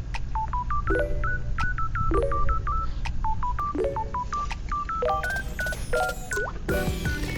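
Background music: a light, plucky melody of short beeping notes over a steady bass line.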